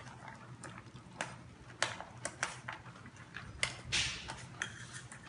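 A young dog eating from a hand-held stainless steel bowl: irregular clinks and crunches of muzzle, teeth and food against the metal, louder about two seconds in and again near four seconds.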